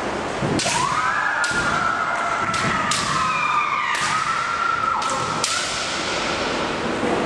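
Kendo fencers' kiai: a long held shout that rises and then sags in pitch for about five seconds. Over it come about ten sharp cracks of bamboo shinai striking and feet stamping on the wooden floor.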